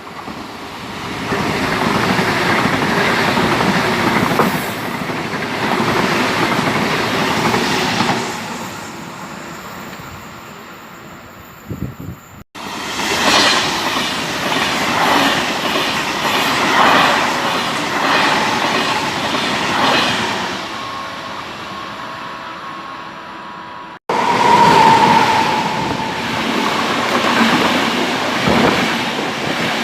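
Passenger trains running through a railway station, their wheels clattering rhythmically over rail joints and points. The sound breaks off abruptly twice and picks up on another passing train, with a short high squeal from the wheels soon after the second break.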